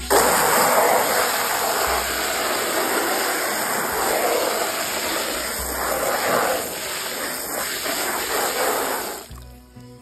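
Hose spraying a hard jet of water into a stock tank, churning the algae-filled water. The rushing spray starts abruptly and cuts off about nine seconds in.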